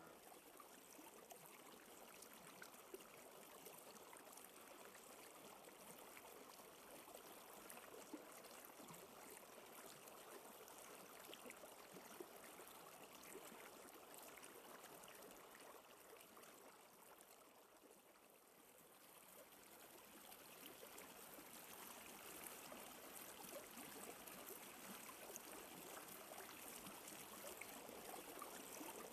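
Near silence: a faint, steady hiss with light scattered crackles.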